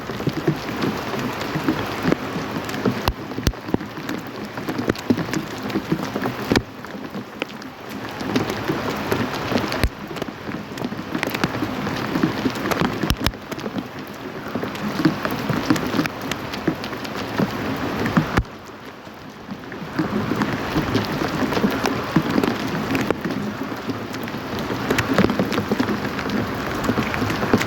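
Rain falling steadily, with many close drops ticking sharply through the hiss. About two-thirds of the way through it drops off abruptly for a second or so, then comes back.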